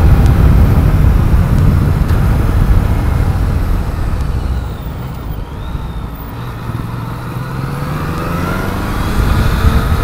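Riding on a Yamaha MT-09, its three-cylinder engine under heavy wind rumble on the microphone. The wind noise eases off around the middle as the bike slows for a bend, then the engine note climbs steadily near the end as it accelerates.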